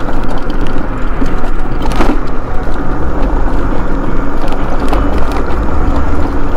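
Mobility scooter riding over rough, cracked asphalt: a loud, steady rumble of tyres and drivetrain with scattered rattles and knocks as it bumps along.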